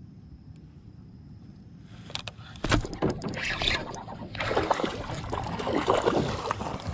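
A hooked largemouth bass splashing and thrashing at the water's surface as it is reeled in. The commotion starts suddenly about two seconds in, after a quiet start, with sharp splashes and clicks through the rest.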